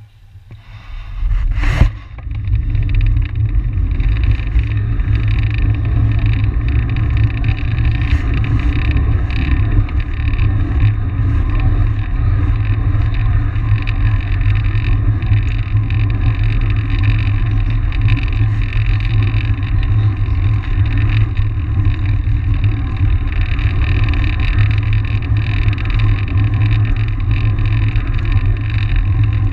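Wind buffeting the microphone of a camera on a moving track bike, together with tyres rolling on the concrete velodrome surface. The rumble builds over the first couple of seconds as the bike gets up to speed, with a single sharp knock just under two seconds in, then holds as a steady loud rush.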